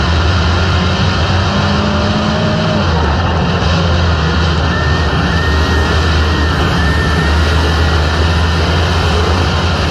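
Dirt-track race car engines running at racing speed: a loud, steady drone with small shifts in pitch.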